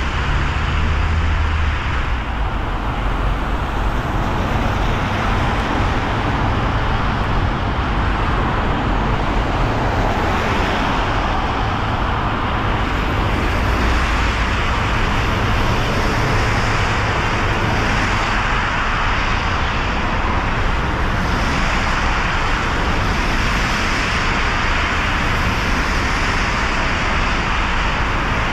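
A car driving through city traffic on wet roads: a steady hiss of tyres and rain spray over a low engine rumble.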